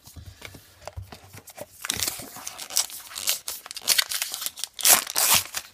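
Baseball card pack wrapper being torn open and crinkled by hand. It comes as a run of rustling bursts from about two seconds in, loudest near the end.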